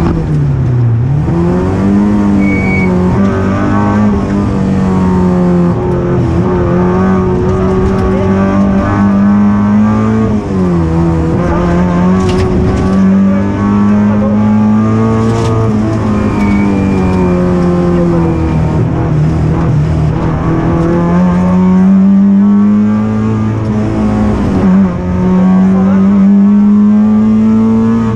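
Citroën ZX rally car's engine heard from inside the cockpit, running hard at high revs. Its note rises and falls through the gears, dipping sharply about a second in and several more times.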